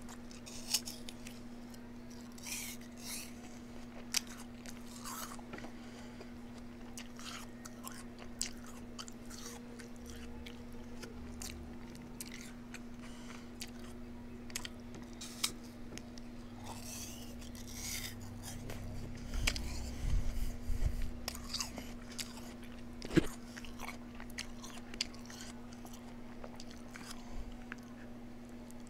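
A person chewing and biting food close to the microphone, with many short sharp mouth clicks, over a steady low hum. A single sharp knock comes about three-quarters of the way through.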